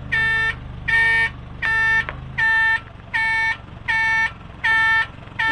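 Tipper truck's reversing alarm beeping steadily, about one and a half beeps a second, with the truck's engine idling underneath; the engine note drops about two and a half seconds in.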